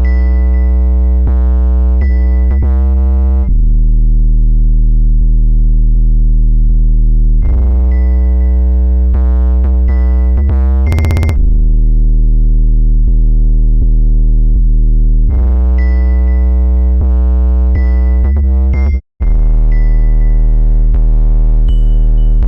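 Electronic background music: sustained synthesizer chords over heavy bass, changing every few seconds, with a brief dropout near the end.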